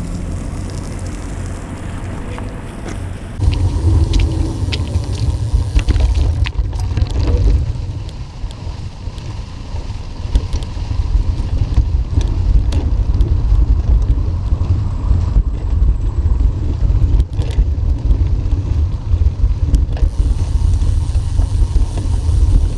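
Wind rumbling on a bike-mounted camera's microphone while a bicycle rides over grass, with scattered clicks and rattles from the bike. It gets much louder about three and a half seconds in.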